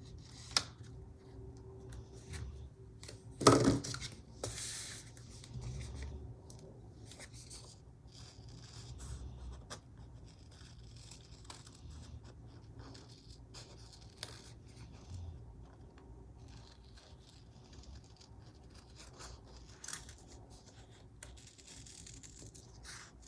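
Paper being handled and cut with scissors: light snips, rustling and scratching of paper on the desk, with one louder knock about three and a half seconds in.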